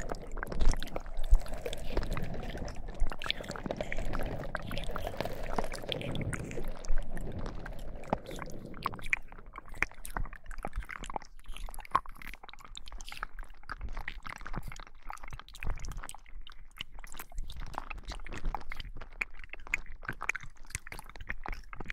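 Slime squeezed and kneaded for ASMR: wet squelching with dense sticky crackles and pops, fuller for the first several seconds, then quieter and sparser.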